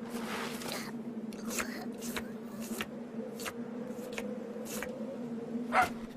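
Cartoon sound effects: a steady low buzzing drone under a string of short, quick noises, with a brief louder squeaky vocal sound near the end.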